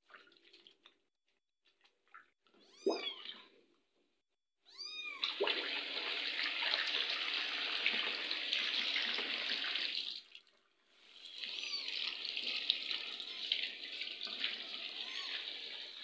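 A very young kitten mewing twice, short cries that rise and fall in pitch, then tap water running steadily into a ceramic washbasin. The water stops briefly about ten seconds in and then runs again, with a few faint mews over it.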